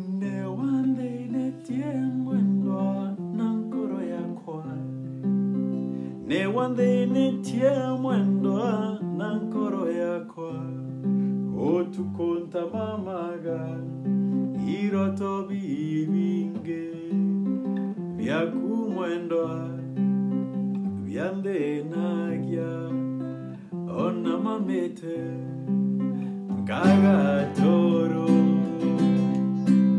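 Nylon-string classical guitar strummed in a steady country-style accompaniment, with a man singing over it in Kimeru for much of the time.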